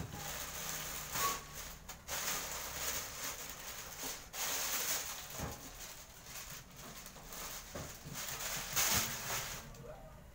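Plastic packaging bag rustling and crinkling as an oven toaster is worked out of it, in uneven bursts with brief pauses.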